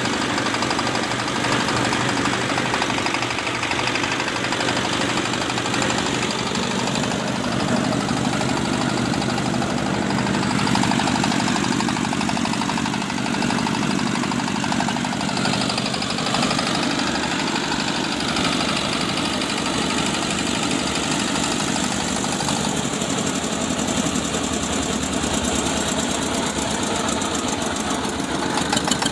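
Motor-driven rice threshing machine running steadily as it beats the grain from harvested rice stalks.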